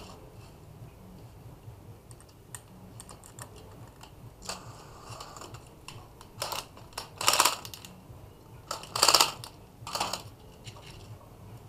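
Utility knife cutting open stiff plastic blister packs of memory cards: scattered light clicks, then several short crackling bursts of plastic, the loudest two a little after halfway.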